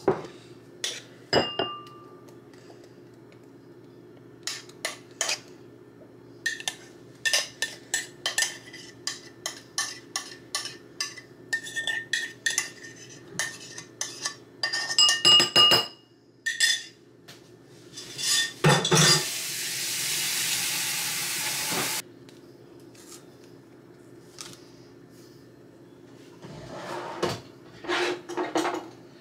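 A metal spoon scraping and clinking against a pot and ceramic bowls as thick oatmeal is scooped out and served, in many short knocks and scrapes. A steady hiss lasts about three seconds past the middle, and a few more knocks come near the end.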